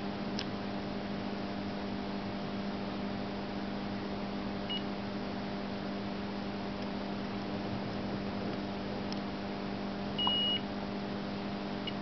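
Steady electrical hum. A short high electronic beep comes about five seconds in, and a longer, louder beep near the end.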